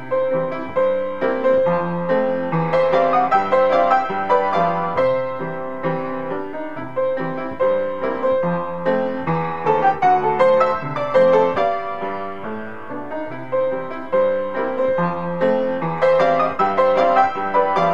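Cable-Nelson spinet piano played continuously by hand: a flowing piece of many notes, with one note in the middle register struck again and again throughout.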